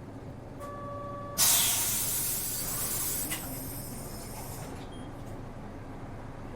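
Inside a city route bus: a short steady electronic beep, then a sudden loud hiss of compressed air being vented from the bus's air system, fading away over about three seconds. A low engine rumble runs underneath.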